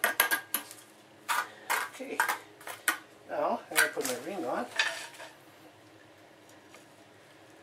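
Steel trowel scraping and clinking as mortar is scooped from a plastic bucket and worked around a floor-drain hole: a quick run of short scrapes and taps, then a brief wavering squeak about three to five seconds in.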